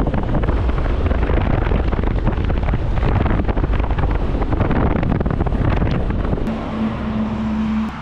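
Wind rushing over the microphone of a camera riding on a moving van, over a deep road rumble. A steady low hum joins about six and a half seconds in.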